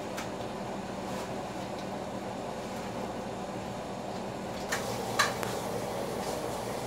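A pot of brown sugar and water boiling steadily on the stove, reducing to a thick syrup, with a few light clicks and one sharper knock about five seconds in.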